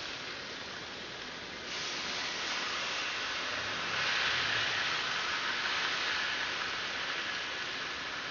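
Fish fillets sizzling in a hot ridged grill pan, a steady hiss that gets louder about two seconds in and again around four seconds in.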